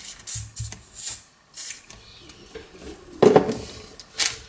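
Silicone lubricant spray hissing from an aerosol can in four short squirts into a 4x4 speed cube's inner layer. A louder thump comes about three seconds in, then the cube's plastic layers click as they start to turn.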